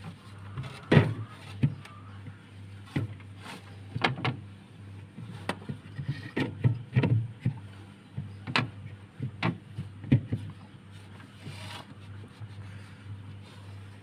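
Knocks and clatters of a refrigerator's doors, drawers or shelves being handled, about a dozen sharp strikes, the loudest about a second in, over a steady low hum.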